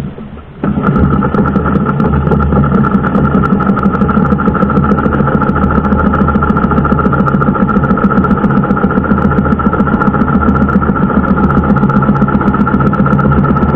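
Small outrigger fishing boat's engine starts running abruptly less than a second in, then runs steadily at a constant speed as the boat heads across open sea.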